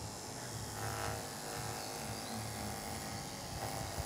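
Andis two-speed electric dog clipper with a 3¾FC blade running steadily, buzzing as it is drawn through a dog's fur.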